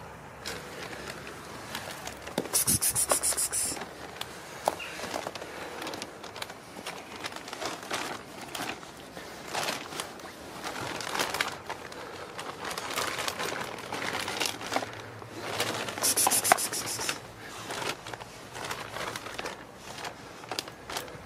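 Footsteps and scuffing on gritty, snow-dusted pavement, with rustling and scraping handling noise. Twice, about three seconds in and again near sixteen seconds, comes a short loud rattle of about a second.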